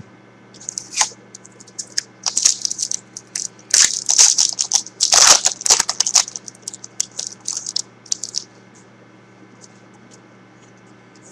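Shiny foil wrapper of a trading-card pack crinkling and tearing as it is opened by hand, in a run of crackles that stops about eight and a half seconds in.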